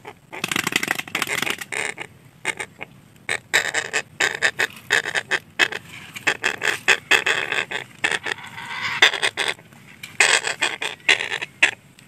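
Red-breasted parakeets giving loud, harsh squawking calls in rapid runs of short notes, with a few brief pauses.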